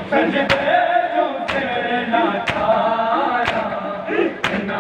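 A group of mourners doing matam, striking their chests in unison about once a second, five strikes in all, while voices chant a noha, a Shia lament, over the beat.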